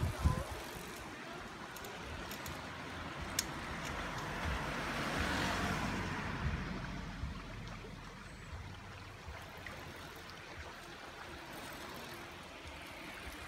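A car driving past on the road, its engine and tyre noise swelling to a peak about five seconds in and then fading away.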